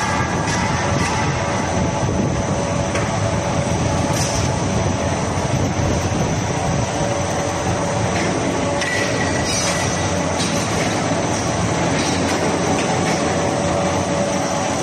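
Wire drawing line running: steel wire feeding over the grooved rollers of a mechanical rust descaler. A steady metallic running noise with a few steady whining tones and occasional clicks.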